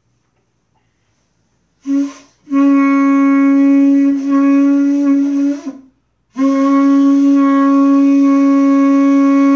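Shofar blown in loud, steady blasts on a single pitch: a short one about two seconds in, then a long blast of over three seconds, a brief break, and a second long blast near the end.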